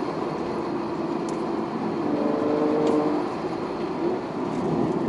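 Car engine and road and wind noise heard while driving, with the engine note coming up for about a second around the middle.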